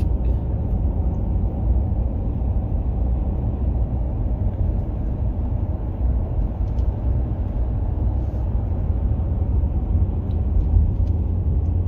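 Steady low rumble of a vehicle being driven, heard from inside the cabin: engine and tyre noise on a gravel road, with a few faint ticks and rattles.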